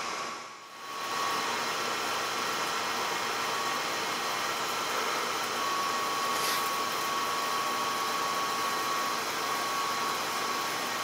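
Metal lathe running with its turning tool cutting along a spinning metal bar on a repeat turning pass: a steady mechanical noise with a thin high whine that comes and goes.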